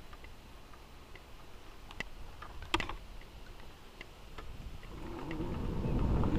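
Scattered light clicks and ticks at an uneven pace, the loudest a little under three seconds in, over a faint low rumble; wind noise on the microphone builds near the end.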